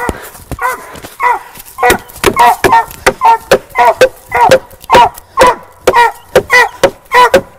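A squirrel dog barking steadily at a tree, about three short barks a second: the treeing bark of a dog that has a squirrel treed.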